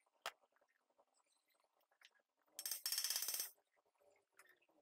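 Hand tool work on a car's front suspension: a single sharp metallic click, then a second-long burst of rapid, evenly spaced metallic clicking about halfway through.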